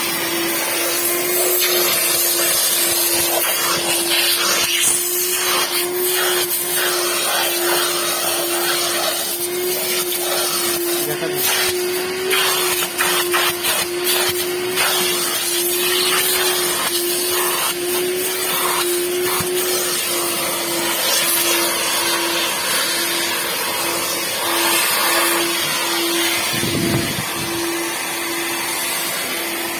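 A small electric motor running steadily, with an airy rush and one steady hum.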